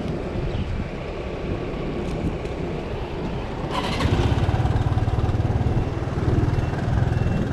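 Motor scooter engine started with a short whir of the starter a little past halfway through, then idling with a steady low pulse. A steady low rumble comes before it.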